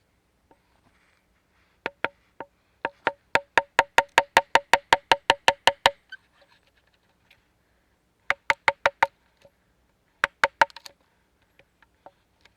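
Rapid hammer blows on wood, each a sharp knock with a short ring. There is a long quick run of about five strikes a second, then two shorter runs of four or five strikes.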